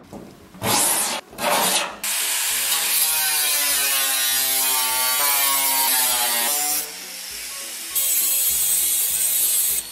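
Angle grinder cutting sheet metal from an old truck body panel, the motor's pitch sagging as the disc bites. Two short scraping bursts come first, then a long steady cut; it eases off for about a second, picks up again and cuts off suddenly near the end.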